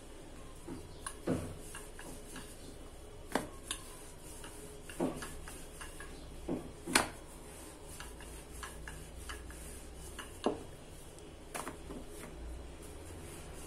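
Wooden rolling pin and hands working a sheet of dough on a marble countertop: scattered light knocks and taps, about eight in all, with the loudest a little past the middle.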